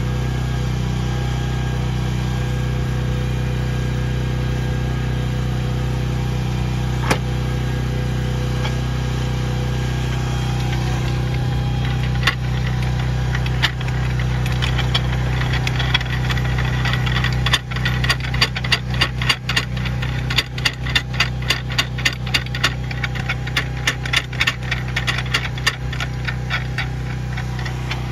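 Engine running steadily at idle, powering the hydraulic track pin press, with a run of sharp metallic clicks, about two a second, from a little past halfway in.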